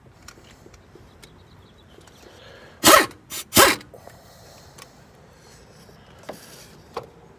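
A dog barking, three short barks close together about three seconds in, with a few faint clicks of tools on the engine around them.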